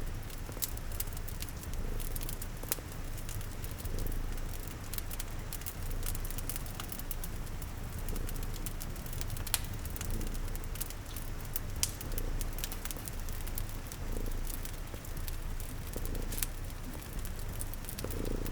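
A cat purring steadily, its purr swelling about every two seconds, over crackling fire with frequent sharp pops and a steady hiss of rain.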